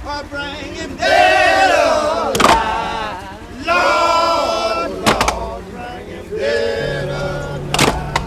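A man singing in drawn-out phrases, with a sharp knock between phrases about every two and a half seconds. A steady low engine hum comes in near the end.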